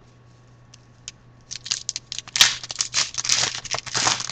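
A shiny foil trading-card pack wrapper being torn open and crinkled by hand. A rapid, uneven run of crackling rips starts about a second and a half in and keeps going, loudest near the end.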